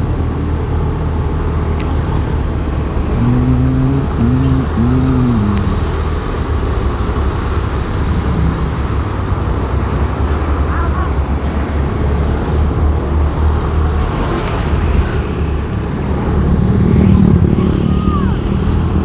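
Motorcycle engine running steadily while riding in traffic, with road noise. About three seconds in comes a short pitched sound of three quick rising-and-falling notes, and near the end the noise swells briefly.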